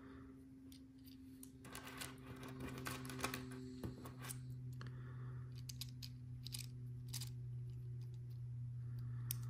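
Small plastic Lego Technic pieces clicking and rattling as they are handled and pistons are pushed into an engine block, a scatter of light clicks over a steady low hum.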